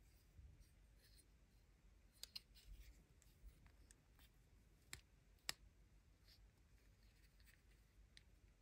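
Faint, scattered clicks of small hard-plastic toy parts being handled and pressed together, as a plastic gun is fitted into a building-block figure's hands. There are a few short taps, with the two sharpest near the middle.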